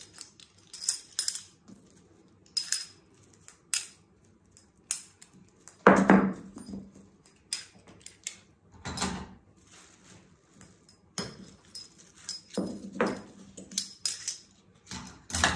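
Dressmaker's pins being pulled out of a pinned paper sewing pattern and fabric. The pins make scattered small metallic clicks and jingles, and four louder handling sounds come at irregular intervals.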